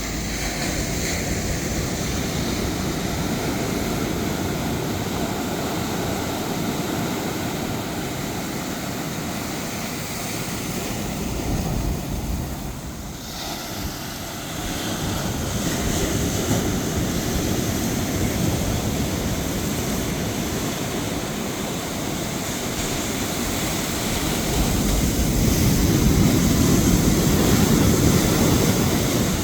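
Rough sea surf and wind, a steady rushing that dips briefly about halfway through and swells louder near the end.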